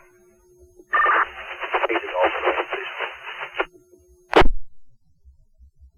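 Two-way radio transmission: a thin, band-limited voice comes over the speaker from about a second in until nearly four seconds, with a low steady tone before and after it. About four and a half seconds in there is a sharp click as the transmission is unkeyed.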